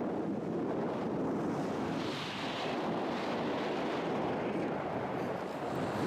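Steady rush of wind buffeting the microphone of a camera flying with a powered paraglider.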